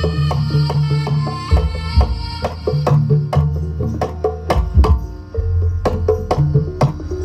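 Jaranan (kuda lumping) ensemble music: sharp drum strokes falling several times a second over deep, sustained gong-like tones and steady pitched notes.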